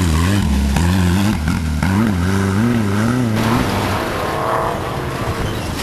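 Off-road racing buggy engine revving hard, its note rising and falling again and again as it drives up a dirt bank, then dropping away as the buggy draws off, with another engine faintly in the distance.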